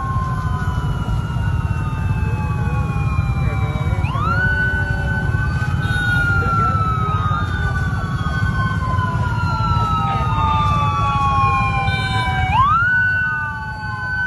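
Several traffic police sirens wailing at once, out of step with each other. Each rises quickly, then falls slowly over several seconds before rising again. A steady low rumble sits underneath.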